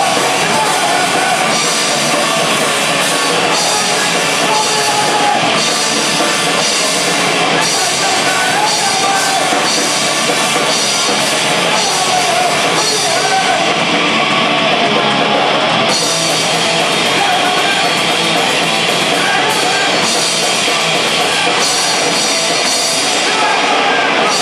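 Live rock band playing loud, heavy music: electric guitars and a drum kit, with a vocalist singing into the microphone.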